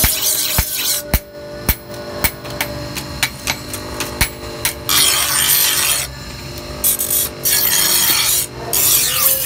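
A steel sickle blade being sharpened on a motor-driven grinding wheel: harsh grinding hiss in long stretches through the second half, with sharp clicks in the first half. Under it runs the steady hum of the grinder motor, which drops in pitch under load and picks up again near the end.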